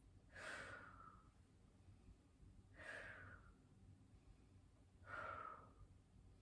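A woman's faint, breathy exhales, three of them about two and a half seconds apart, each falling in pitch, as she breathes through a held modified side plank.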